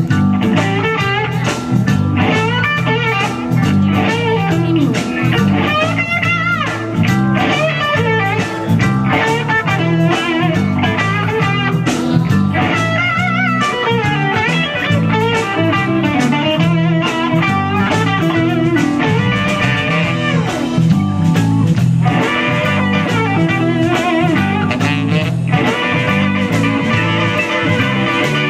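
Live band playing an instrumental blues number: an electric guitar lead over bass guitar and drums, without a break.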